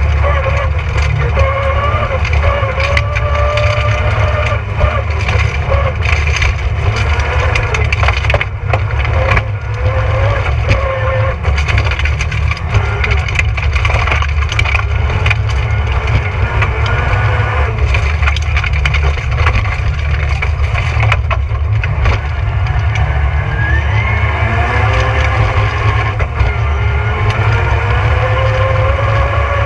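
Rally car engine working hard at stage speed, its pitch rising and falling as the driver accelerates, lifts and changes gear, over a constant heavy road rumble. Many sharp clicks and rattles of stones and gravel strike the car's body and underside.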